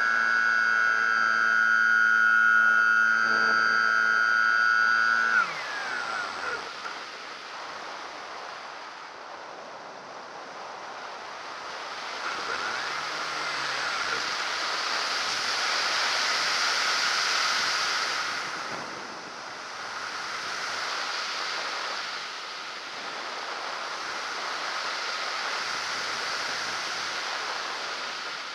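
Model aircraft's motor and propeller running with a steady whine, cut off about five seconds in with a falling pitch. After that, wind rushes over the airframe and microphone, swelling and fading as the plane glides and dives.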